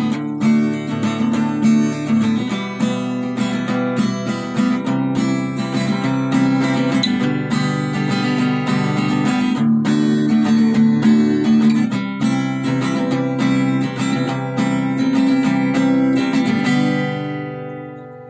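Intro music: strummed acoustic guitar playing chords, fading out near the end.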